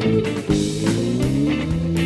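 Instrumental jam with electric guitar, fretless bass and drum kit; held and sliding guitar notes over the bass, with cymbal and drum hits.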